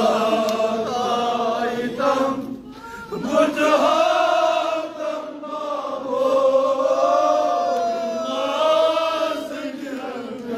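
Male voices chanting a Kashmiri noha, a Shia mourning lament, in long drawn-out notes that slide and waver in pitch.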